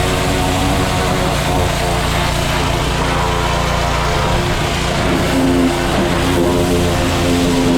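Small engine running steadily, with a constant hiss over it and a slight shift in its pitch about five seconds in.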